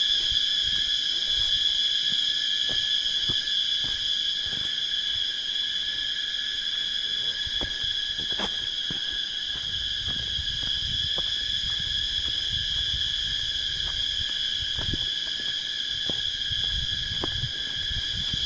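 A loud, unbroken, high-pitched insect drone, steady in pitch, that sounds like an engine.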